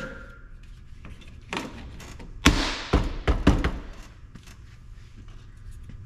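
Plastic door trim being pushed and popped into place on a 2008 GMC Sierra 3500 pickup door. A single knock comes about one and a half seconds in, then a quick run of four or five louder knocks and thunks lasting about a second.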